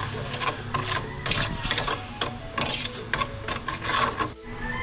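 A metal spoon scraping and clinking against the bottom of an aluminium flan mould in quick repeated strokes, about two to three a second, stirring sugar syrup for the caramel. A steady low hum runs underneath.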